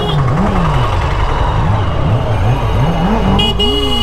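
Kawasaki Z900 inline-four engine on its stock exhaust, blipped repeatedly at low speed, the revs rising and falling several times. A vehicle horn honks near the end.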